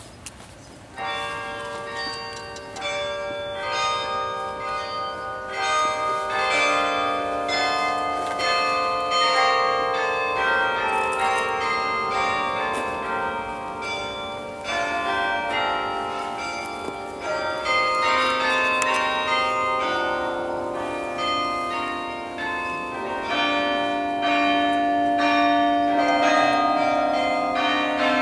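Carillon playing a slow melody in chords, its struck bronze bells ringing on so that each note hangs over the next. It starts about a second in and grows louder towards the end.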